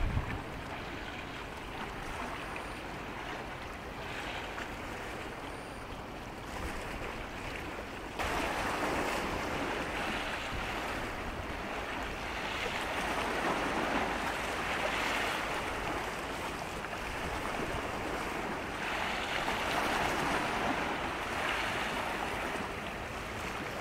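Sea water washing with wind on the microphone, a steady rush with no engine tone. It gets louder suddenly about eight seconds in, then swells and eases twice.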